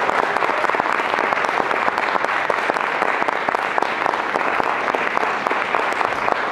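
Audience applauding, a dense steady patter of many people clapping.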